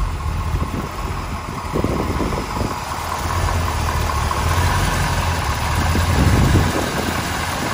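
1963 Corvette's 340-horsepower 327 small-block V8 idling steadily and quietly, heard close at the open engine bay: a low even hum with a faint steady whine above it.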